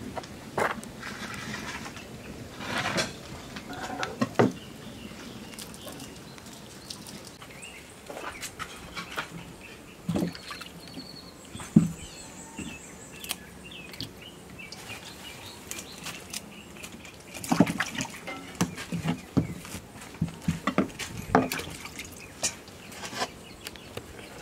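Handling noises of food preparation: scattered knocks, clinks and rustles as ingredients and metal bowls are moved about on a table, with a few sharper knocks standing out.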